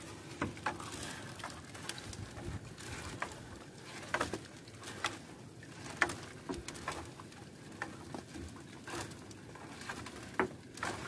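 Scattered, irregular short knocks and taps over a steady low hum, as a gill net with fish in it is hauled into a small fishing boat by hand.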